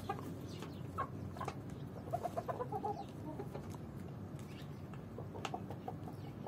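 Chickens clucking in short, scattered calls, with a quick run of clucks about two seconds in, over a steady low hum.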